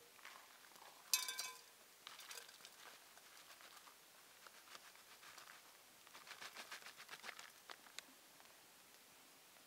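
A foil food pouch rustling and dry soup mix pattering into a stainless steel pot, with a short ringing metallic clink about a second in.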